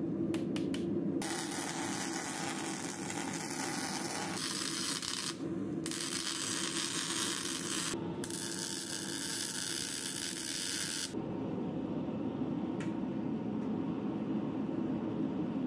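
Electric arc welding on a Damascus steel billet: four welds of one to three seconds each, a crackling hiss that starts and stops sharply, tacking the layered stack together and fixing on a rebar handle. From about eleven seconds in, a gas forge burner running with a steady rushing noise.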